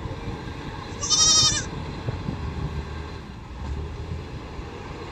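A goat bleats once, a short wavering call about a second in, over the low steady running of a diesel wheel loader and dump truck working a coke pile.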